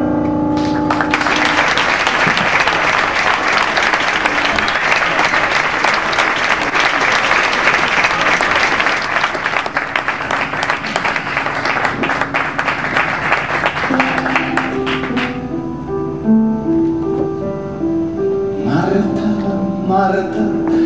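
The last note of a song with piano fades, then an audience applauds. The applause breaks off suddenly about fifteen seconds in and a piano starts playing the opening notes of the next song.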